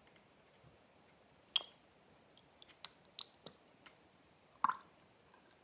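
Scattered small clicks and taps from a pipette and a plastic suppository mould being handled while filling, about ten in all, with the two loudest about a second and a half in and near the end.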